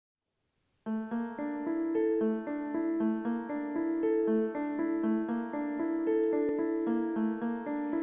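Instrumental song introduction on piano: a repeating figure of broken-chord notes that starts suddenly about a second in.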